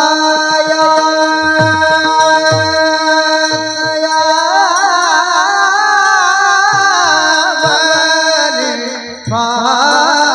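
A high singing voice holds a long wavering note in a Marathi kirtan, over a steady drone and low drum strokes. About nine seconds in, the voice breaks off briefly and a new high phrase begins.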